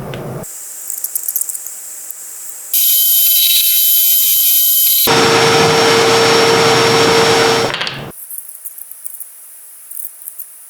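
Workshop power tools heard in a quick run of cut-together clips, each starting and stopping abruptly. The loudest is a machine running with a steady hum for about three seconds in the middle.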